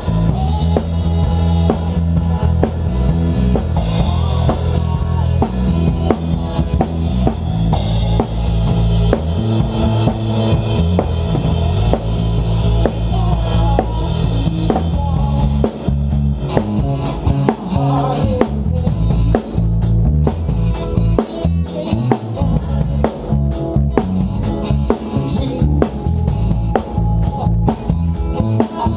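A live worship band playing, heard from right beside the drum kit, so the drums sit loudest over the bass and other instruments. About halfway through, the steady cymbal wash drops away and separate drum hits stand out.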